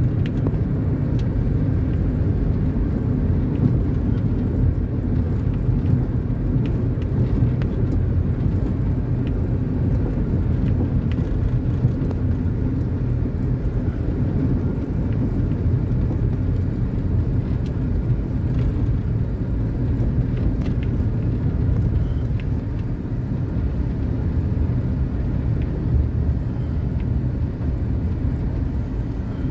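Steady low rumble of a vehicle's engine and road noise as it drives along.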